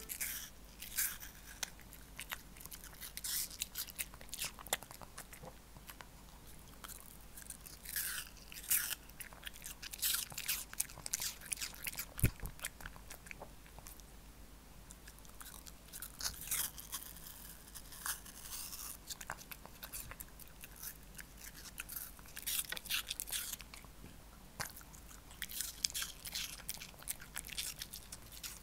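Shih Tzu crunching and chewing pieces of apple: clusters of crisp crunches with short pauses between mouthfuls.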